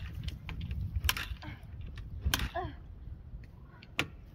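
Yamaha TT-R125LE dirt bike being kick-started over and over: three sharp clacks of the kickstarter, each a second or more apart, as the cold single-cylinder four-stroke turns over without catching.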